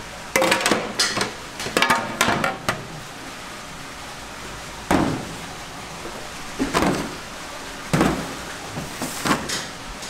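Aluminium roasting pans clattering and ringing as they are set down and stacked on a stainless steel counter, in two bursts in the first three seconds. Then four separate knocks on the counter, a second or so apart.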